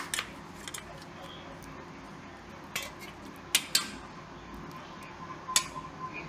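A metal spoon clinks against a stainless-steel plate as it scoops up coated raw chicken pieces. The clinks are short and sharp and spread out, and the loudest pair comes about three and a half seconds in.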